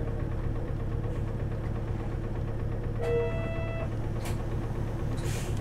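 Diesel engine of a city route bus running steadily with a low hum. About three seconds in, a short electronic tone sounds for under a second, followed by a click and a brief hiss.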